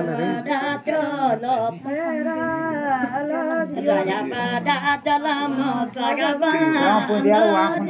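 Women singing a traditional Garhwali ceremonial song unaccompanied, with held, wavering notes.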